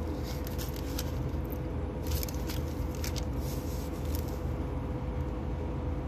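Steady low rumble and hum inside a moving vehicle's cabin, with scattered light rattles and clicks.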